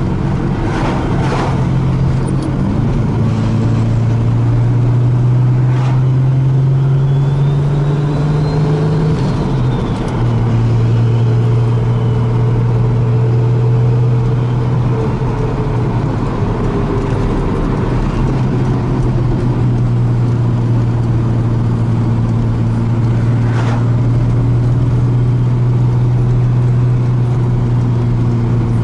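Turbocharged car engine running under way, heard from inside the cabin: a steady engine note whose pitch shifts a few times, with a couple of brief clicks.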